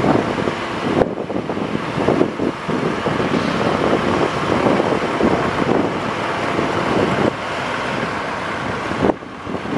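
Wind buffeting the microphone in gusts over a running vehicle engine, likely the truck's International DT466 diesel powering the Altec bucket boom's hydraulics as the boom moves. The sound dips briefly about a second in and again near the end.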